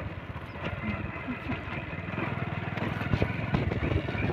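Small two-wheeler's engine running while riding along at low speed, with a few light knocks about three seconds in.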